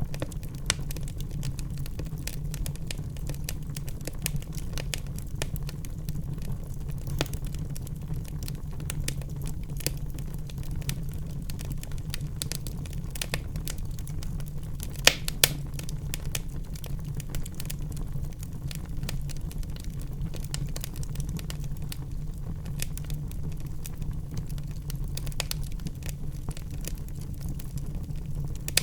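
Wood fire burning in a fireplace, crackling with a constant scatter of small snaps over a steady low rumble. Two louder pops come close together about halfway through.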